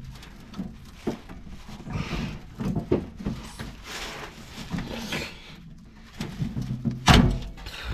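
Socket wrench and bar straining against a rust-seized exhaust flange bolt: scattered metal clicks and knocks with low grunts of effort, and one sharp, loud metallic crack about seven seconds in.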